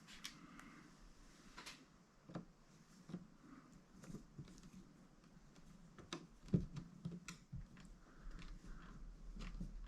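Faint, irregular clicks and taps of a small screwdriver and screws being worked on a laptop's battery, with one sharper knock about six and a half seconds in.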